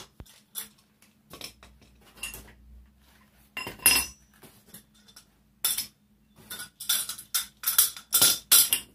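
Metal legs of a folding shooting seat being handled and set down on a concrete floor: a string of clanks and knocks, loudest about four seconds in, with a quicker run of them near the end.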